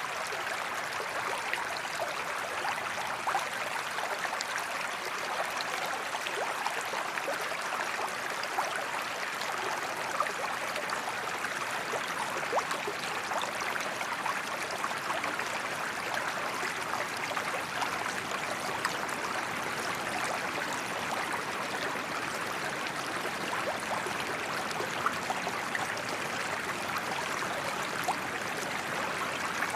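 A shallow creek running steadily, water burbling over stones with many small splashes and trickles.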